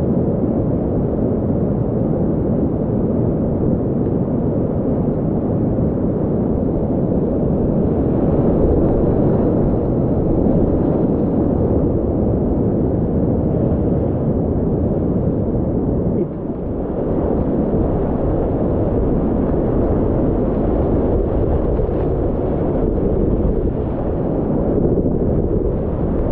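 Whitewater rapids rushing loudly and steadily around a kayak as it runs a boulder rapid on a river at medium-to-full flow. There is a brief drop in the noise about two-thirds of the way through.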